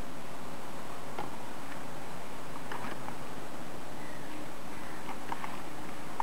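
Square origami paper being folded and creased by hand: a few soft, scattered crinkles and taps over a steady hiss.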